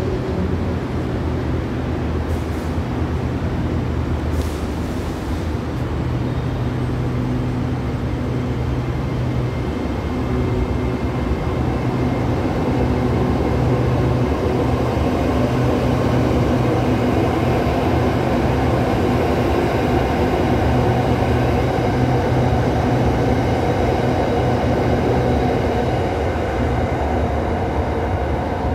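SRT Red Line electric commuter train standing at the platform with a steady hum of its onboard equipment, then pulling away with its motor hum building about halfway through.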